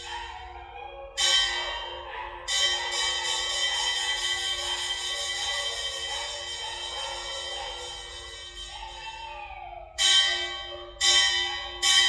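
Background music with bell-like chimes struck five times: twice early on, each ringing and slowly fading, then three quick strikes near the end.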